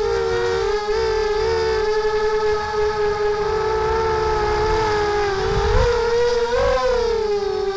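Mini quadcopter's brushless motors and propellers whining in flight, heard from the onboard camera. Several close tones waver together as the throttle changes, swelling up and back down about six to seven seconds in.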